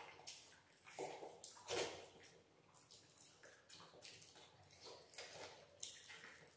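Faint wet eating sounds: chewing and lip smacks, with fingers squishing and mixing rice and dal on steel plates, in short scattered bursts, the clearest about a second in, just before two seconds and near the end.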